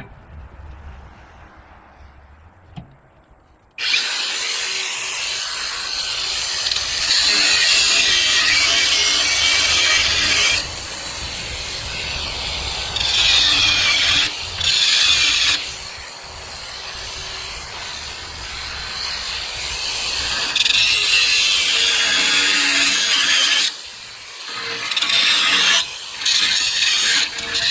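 Cut-off disc (zip disc) on a power grinder cutting through an exhaust pipe. After a few quieter seconds it starts about four seconds in and runs continuously, rising several times into louder, harsher cutting and easing off between them.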